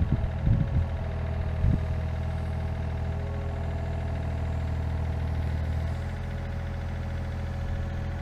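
Volvo ECR88 compact excavator's diesel engine running steadily, with a few short low thuds in the first two seconds. The engine note shifts slightly about six seconds in.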